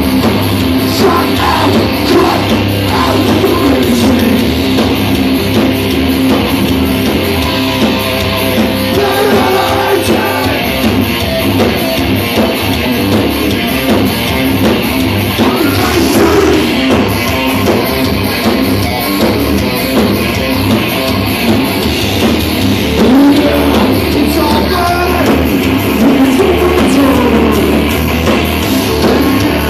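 Metal band playing live and loud: distorted electric guitar, bass guitar and drum kit, with singing.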